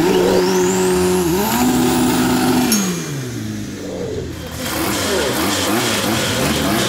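A drag car's engine revved up and held at high revs twice, then dropping back near the middle; after that, engine revs go up and down unevenly.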